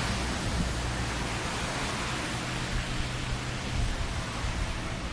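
Demolition excavator's diesel engine running with a steady low drone, under an even hiss.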